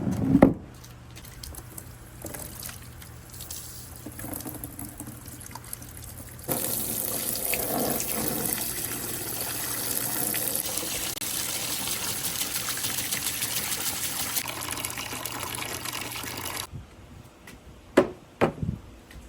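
Water running steadily through a water marble run course for about ten seconds, starting and stopping suddenly. Faint clicks come before it, and a few sharp knocks near the end, typical of marbles striking the course.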